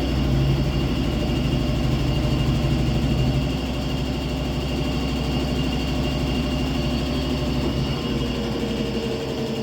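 Brastemp Ative 11 kg washing machine spinning on its spin cycle with a steady hum, a little quieter after about three and a half seconds. With new drum bearings, mechanism and seal fitted, it runs without the loud roar of worn bearings.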